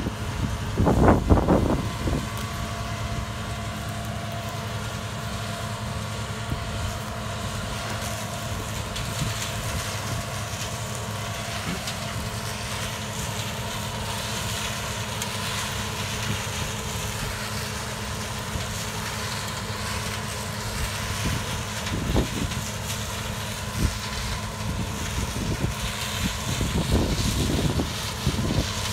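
Combine harvester running steadily as it drives out to the field, an even engine drone with a steady whine. A few brief knocks and rattles come about a second in and again near the end.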